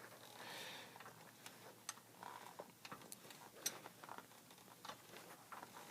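Faint, irregular light metallic clicks and taps from hand work on a seized engine, otherwise near silence.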